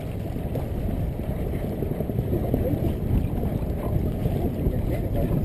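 Wind buffeting the microphone over water rushing past the hull of a boat under way, a steady low rumbling noise, with faint voices in the background.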